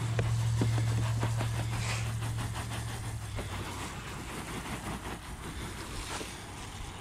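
Garden-hose spray nozzle rinsing cleaner off a fabric convertible top: a steady hiss of water with spattering. Under it is a low engine hum that fades away about three seconds in.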